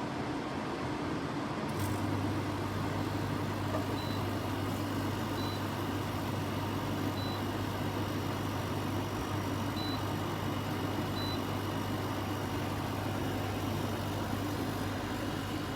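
KGOGO 4-in-1 portable air conditioner running with a steady rush of air from its fan; a low, steady hum joins about two seconds in.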